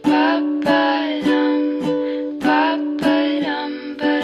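Background pop music with no vocals: sustained pitched tones over a steady beat of sharp hits.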